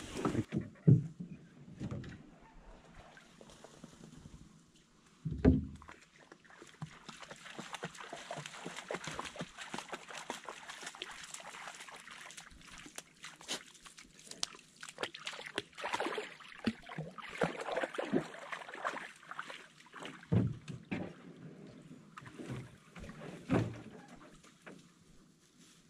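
Hollow knocks on a canoe hull, a loud one about a second in and another around five seconds, then a long stretch of rustling and small clicks as things are handled inside the canoe at the water's edge, with a few more knocks near the end.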